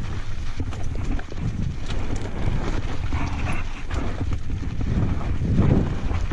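Downhill mountain bike rolling fast over loose volcanic rock and scree: tyres crunching on stones and the bike rattling with many small knocks, under a steady rumble of wind buffeting the microphone.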